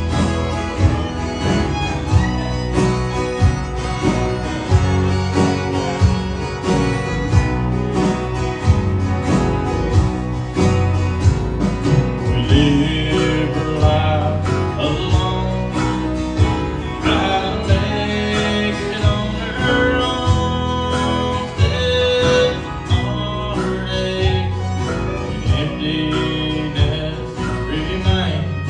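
Country-style music with guitar and a steady beat; a high wavering melody line comes in about halfway through.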